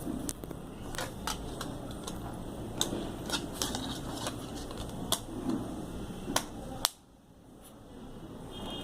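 Scattered sharp plastic clicks and taps, about nine of them, from handling a basic Samsung mobile phone while its cover and battery are worked on. A steady background noise runs under them, cuts out suddenly about seven seconds in and then slowly returns.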